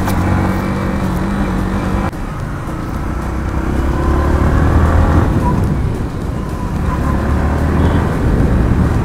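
Yamaha MT-15's 155 cc single-cylinder engine running as the bike rides along at low speed. Its note changes abruptly about two seconds in, climbs slowly, and drops back a little after five seconds as the throttle is eased.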